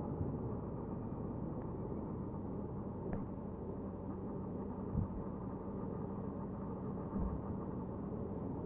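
Motorcycle running at a steady pace with a low rumble of engine and road; two brief thumps, about five and seven seconds in.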